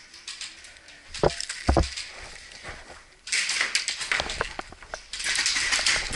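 Two sharp knocks a little over a second in, then long spells of rustling and scuffing of clothing and gear as an airsoft player moves through a narrow indoor corridor and presses against a wall and a teammate.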